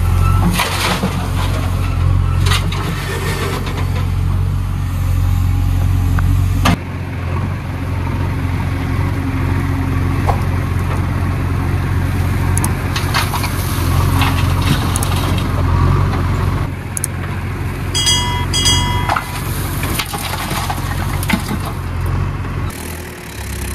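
JCB 3DX backhoe loader's diesel engine running steadily under load while the backhoe digs and dumps soil and stones into a tractor trolley, with knocks and the rattle of falling earth and rock. Two short high squeals come about three quarters of the way through.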